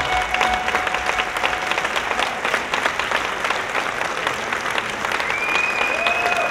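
Audience applauding steadily, with the last held note of the music dying away in the first second or two. A long, high cheer rises above the clapping near the end.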